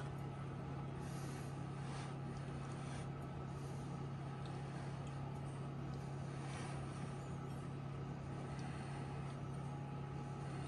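Steady low hum over a faint even hiss, unchanging throughout, like a running appliance motor or fan in a kitchen.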